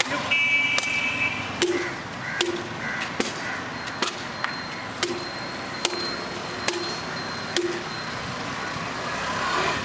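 A dry wooden stick being whacked down hard onto an asphalt road over and over, about one sharp strike a second, as it splinters and breaks.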